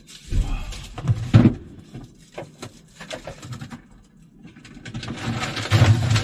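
Plastic bags rustling and items knocking as frozen food is taken out of a broken RV fridge, with a loud burst of handling early on and another near the end.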